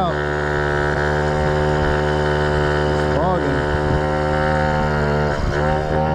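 2001 Yamaha Vino scooter engine running at a steady pitch while being ridden uphill, with a brief swoop in pitch about three seconds in. It is running loud and bogging because the air box has been left off.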